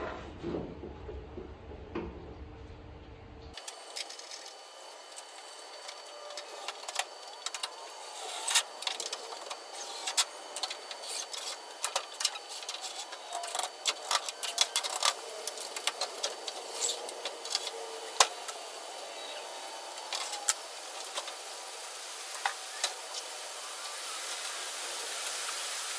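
Scattered metallic clicks, clinks and rattles of an old truck's steel outer fender and its mounting hardware being handled and fitted, over a faint hiss that slowly grows louder toward the end.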